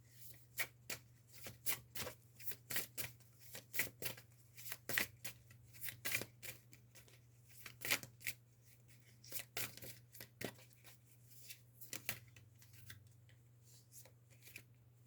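A deck of tarot cards being shuffled and handled by hand: a long run of quick, irregular card snaps and flicks over a low steady hum.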